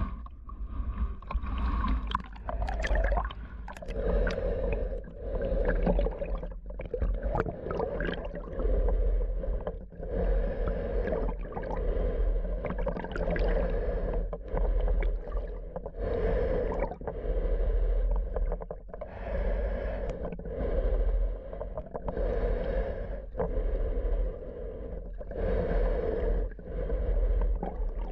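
Slow, even breathing in and out through a Free Breath full-face snorkel mask, each breath swelling and fading over a second or two, over a steady low underwater rumble.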